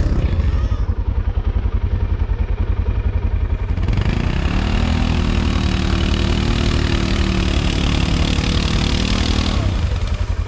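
ATV engine running with a steady low pulse. About four seconds in, it revs up and holds high revs under load for about six seconds, then drops back.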